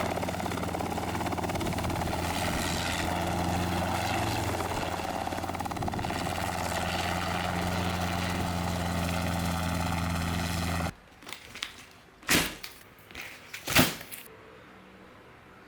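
Robinson R22 helicopter engine and rotor running with a steady drone. It cuts off abruptly about eleven seconds in, leaving quiet broken by a few sharp knocks.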